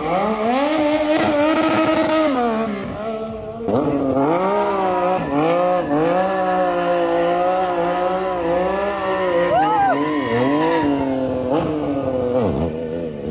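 Stunt motorcycle engine revving hard over and over, its pitch rising and falling, while the rear tyre spins in a smoky burnout at the start. The revs drop briefly about four seconds in and spike sharply near ten seconds.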